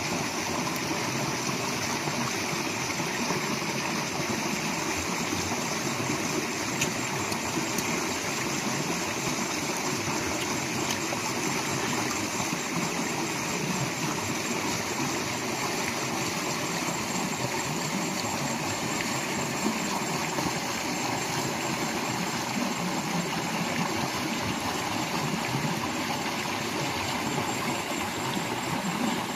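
Steady rush of a shallow rocky stream, water running over and between boulders.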